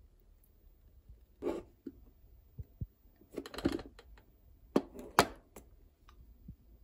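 Kitchen handling sounds: scattered sharp knocks and clicks, busiest a little past the middle, as plastic food containers and their lids are handled and set down.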